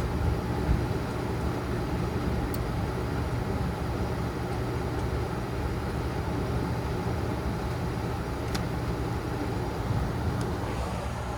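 Gas furnace running, its blower fan moving air with a steady hum and rush, with a few faint clicks along the way.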